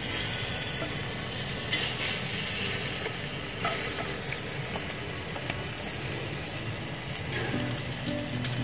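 Pork back ribs sizzling steadily on a foil tray over a hot Weber gas grill.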